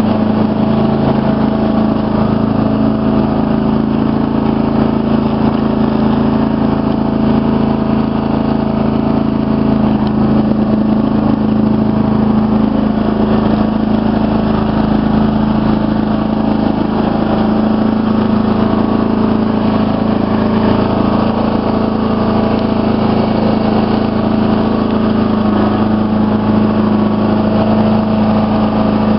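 Riding lawn mower engine running steadily at low speed, heard from the driver's seat.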